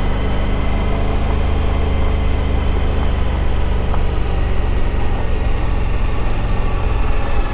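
Suzuki V-Strom adventure motorcycle engine running steadily while being ridden along a trail.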